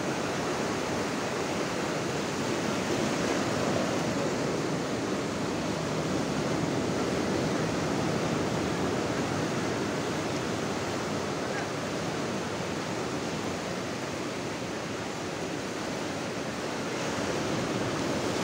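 Ocean surf breaking and washing over a shallow beach: a steady rush of water that swells and eases with the waves.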